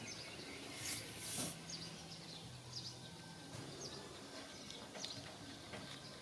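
Faint outdoor background with scattered short, high bird chirps, a low steady hum underneath, and two brief bursts of hiss about a second in.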